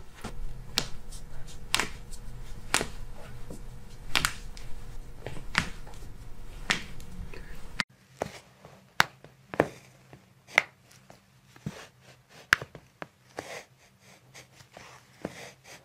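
A series of sharp joint pops and cracks, about one a second, as a chiropractor pulls and twists the foot, ankle and toe joints. A low hum runs under the first half.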